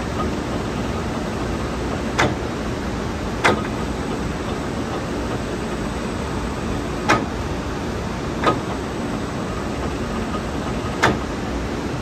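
ORII coil straightener feeder running with a steady mechanical noise, broken by sharp clicks that come in pairs about a second and a half apart, the pairs repeating about every four seconds.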